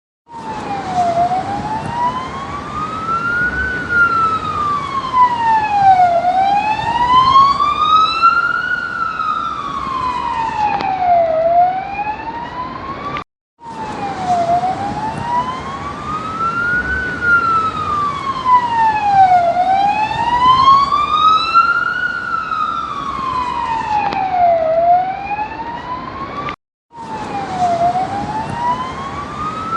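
Police siren on a slow wail, its pitch rising and falling about every five seconds over a steady background rumble. It cuts out briefly twice, about 13 and 27 seconds in.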